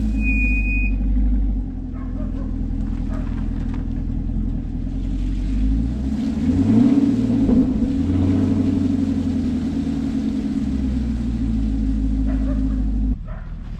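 Car engine running with rising and falling revs, while the rear-wheel-drive car is stuck in snow. The sound cuts off sharply near the end.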